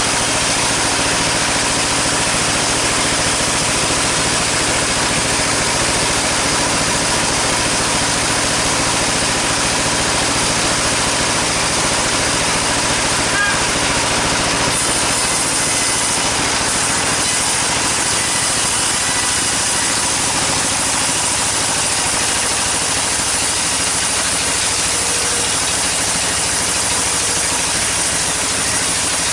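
Sawmill saw and its drive motor running steadily with a loud, even hiss as long sengon timber is sawn; the cutting sound grows brighter about halfway through.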